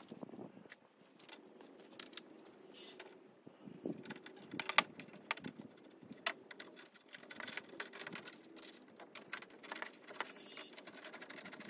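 Irregular light clicks, taps and clinks of hardware being handled, with one sharper knock about five seconds in: hand work pulling cabling and an inverter mount out from under a van's passenger seat.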